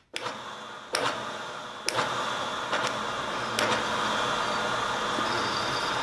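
Several overlapping recordings of a milling machine running a boring head through the bore of a steel plate. A new layer comes in with a sharp click about once a second, so the steady machining noise grows louder in steps and then holds.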